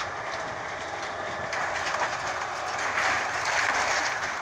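Crawler bulldozer working: engine running with a clanking, rattling clatter from its tracks and blade, growing louder from about a second and a half in.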